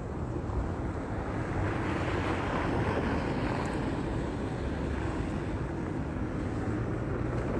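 Traffic on a snow-covered street: a steady low rumble, with a rush of car tyre noise on slush swelling about two seconds in and easing off after about five seconds.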